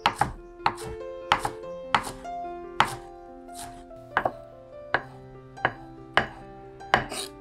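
Chef's knife chopping green onions on a wooden cutting board: a series of sharp knocks, roughly one to two a second and unevenly spaced, over soft background music.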